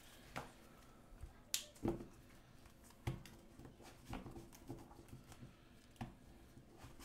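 A deck of sleeved playing cards being shuffled by hand. The cards make soft, irregular clicks and slaps as the packets are pushed together.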